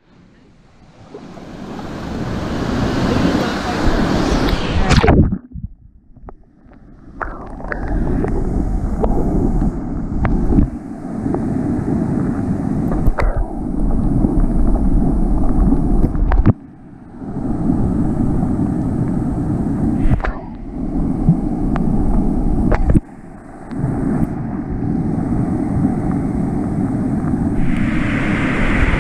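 Rushing white water pouring over a river weir, heavy with wind and water noise on the camera's microphone. The sound drops away abruptly a few times and comes straight back.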